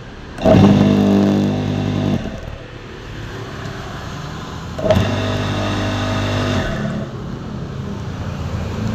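H&L QL-1200 high-pressure cleaner's 700-watt induction motor switched on twice. Each time it starts abruptly, runs with a steady hum for about two seconds, then is switched off.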